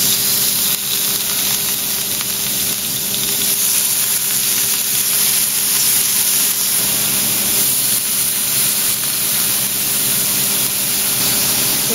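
Marinated fish fillets sizzling steadily in oil on a flat griddle.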